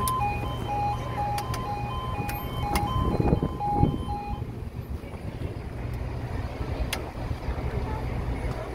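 Level crossing alarm sounding its two alternating tones, which stop suddenly a little over four seconds in. Wind rumbles on the microphone throughout, with a few louder gusts.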